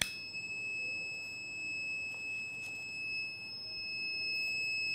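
Small electronic sound-source box giving one steady, unbroken high-pitched beep tone, switched on right at the start.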